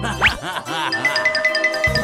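Background music with a quick rising glide near the start, then a fast run of repeated bright bell-like mallet notes over steady low tones.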